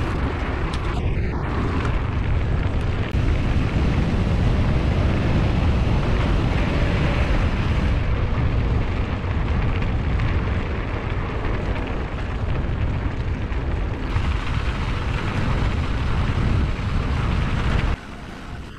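Wind buffeting the camera microphone on a moving mountain bike, a steady deep rumble mixed with tyre noise on the dirt trail. It falls away suddenly near the end as the bike slows.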